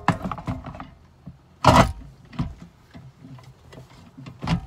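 Handling noise of a console vault and a truck's center console: scattered clicks and knocks, with one louder scraping rustle a little under two seconds in.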